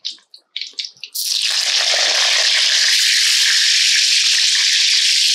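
Whole tomatoes frying in hot oil in a steel kadhai. A loud, steady sizzle starts suddenly about a second in and holds.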